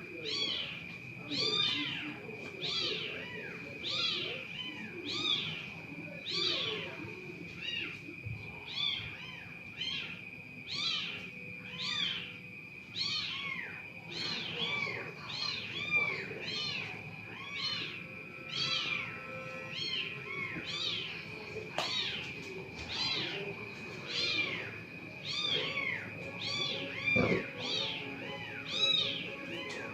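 A small animal's high chirping calls, repeated one to two times a second, over a steady high-pitched tone.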